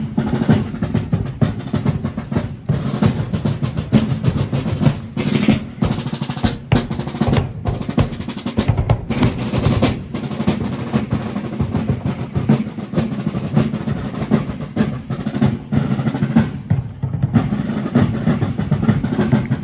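Snare and bass drums of a fife-and-drum corps playing a continuous marching cadence, with dense, rapid strokes throughout.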